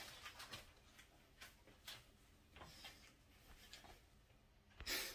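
Near silence: room tone with faint scattered small clicks, and a brief louder noise near the end.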